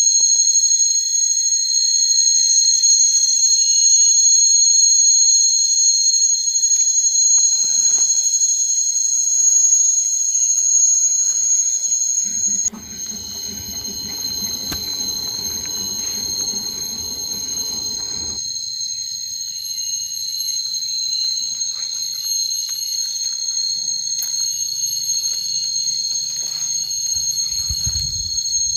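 Steady high-pitched buzzing chorus of insects, held on two even tones. In the middle a low rumbling sound joins it for about six seconds.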